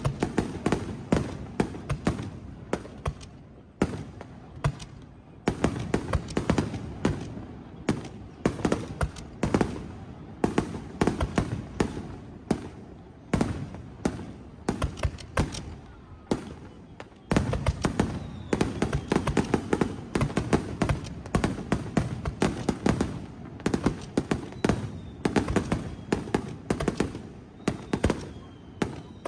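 Aerial fireworks display going off in rapid barrages: many sharp bangs and crackling bursts a second, easing briefly twice and then building again. Faint whistles from rising shells come through in the second half.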